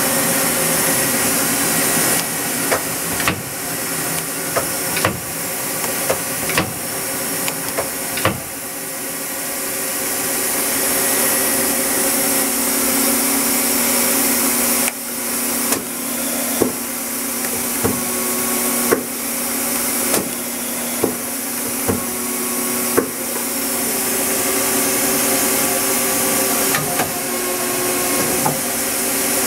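Hyundai HIT-15S CNC turning center running, with a steady hum and strong hiss. Sharp clunks come often about a second apart, in two runs, as the tool turret indexes and the axes move.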